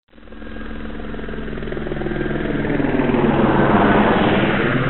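A piston engine running with a rapid, even pulsing beat. It grows louder to a peak about four seconds in, then begins to fade.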